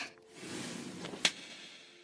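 A soft rush of noise, then one sharp slap a little over a second in: a hand striking a face.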